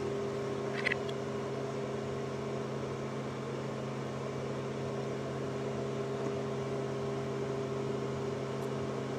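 Steady hum of commercial kitchen machinery, several fixed tones under a low, even noise.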